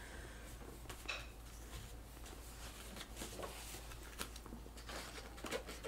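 Quiet rustling and scattered light clicks and taps of cloth, paper and small craft supplies being handled.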